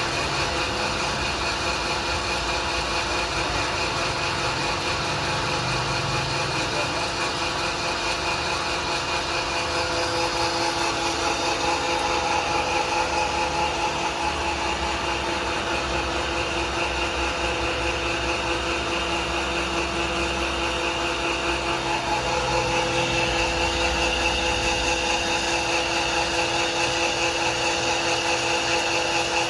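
5.5-horsepower 220-volt electric animal-feed pellet mill running steadily, a continuous motor hum with a whine from the machine, growing slightly louder about twenty-two seconds in.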